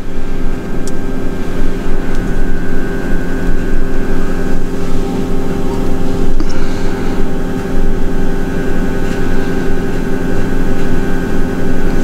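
A steady droning hum made of several held tones over a low rumble, without change.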